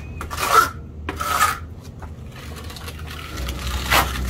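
A steel hand trowel scraping wet stucco patch onto a stucco wall in a few separate strokes, pressing and smoothing the fresh mix into the gap under a window frame.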